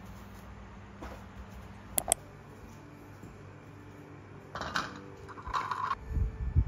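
Kitchenware being handled on a table: two sharp clicks about two seconds in, then scraping and rustling as hands work in a glass bowl and pick up small items, with low thumps starting near the end.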